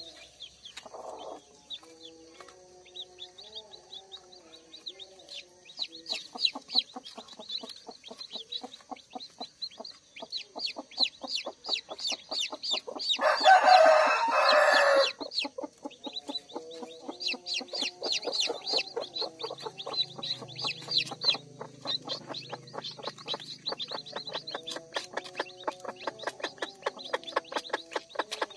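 Newly hatched native chicks peeping continually in quick, high chirps. A rooster crows once, for about two seconds around the middle; this is the loudest sound.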